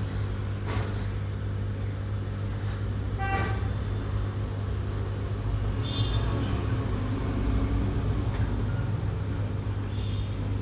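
Aquarium pump humming steadily and low, with a short distant horn toot about three seconds in and brief high beeps around six and ten seconds.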